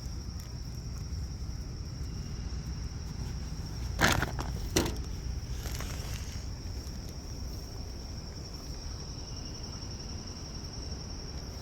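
Crickets trilling steadily as a high thin tone, over a low outdoor rumble, with two short sharp knocks or rustles about four and five seconds in.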